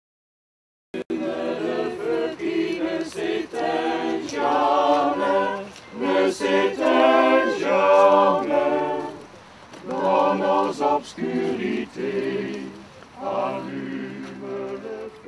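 A group of men's and women's voices singing unaccompanied, in sustained phrases with short breaths between them. The singing cuts in abruptly about a second in, after a moment of complete silence.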